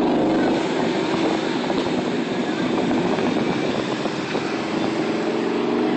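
Wind rushing and buffeting over a phone's microphone on a moving bicycle, a steady rough noise, with street traffic underneath.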